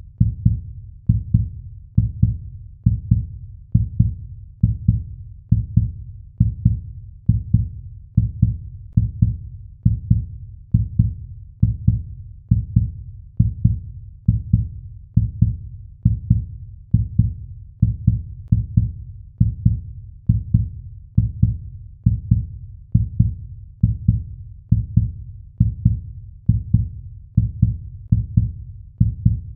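Heartbeat sound effect: a low double thump repeating steadily about once a second.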